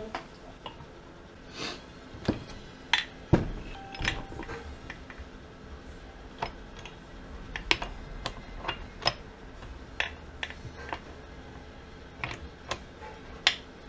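Irregular metal clinks and knocks of engine parts being handled as the crankshaft is set into a crankcase half beside the transmission gears, with a heavier knock about three seconds in.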